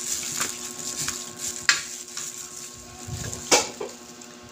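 Eating utensils clinking and scraping against a plate, with two sharper clinks, one near the middle and one about three-quarters of the way through.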